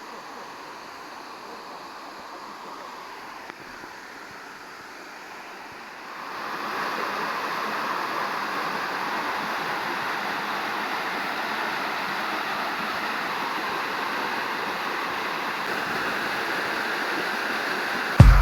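Waterfall rushing, a steady hiss of falling water that grows louder about six seconds in and then holds level. A brief loud thump comes right at the end.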